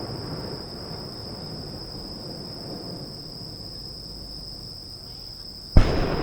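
Insects trill steadily in one high, even tone while the low rumble of a firework burst dies away. Near the end a single aerial firework shell bursts with a sharp, very loud bang, and its rumble rolls on after it.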